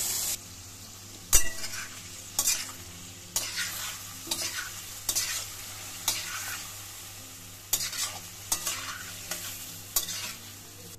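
A cooking spoon stirring and scraping in a kadai, about one stroke a second, mixing curd and spices into browned cauliflower, over a low sizzle from the hot pan with the gas flame off. A louder hiss cuts off about half a second in.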